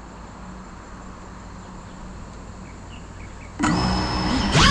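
Steady outdoor background with a few faint chirps. About three and a half seconds in, the Cinelog 35 cinewhoop's brushless motors spin up suddenly and loudly, a high whine with several tones, as the drone lifts off.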